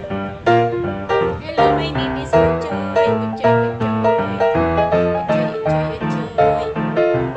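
Background instrumental music: a melody in a quick, even run of notes, about two to three a second.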